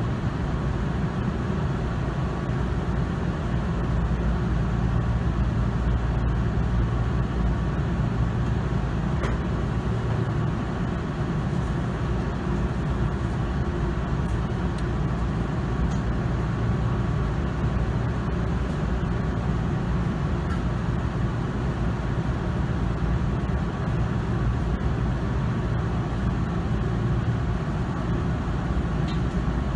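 Steady hum and whir of a stopped electric commuter train's onboard equipment and air conditioning, heard from inside the car while it stands at the platform, with a faint steady whine over it.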